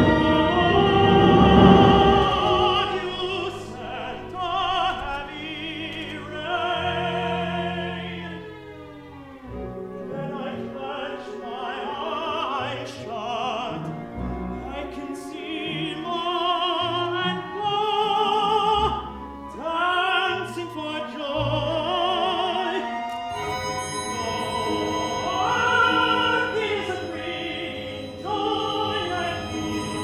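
A man singing opera with strong vibrato, accompanied by an orchestra playing sustained notes.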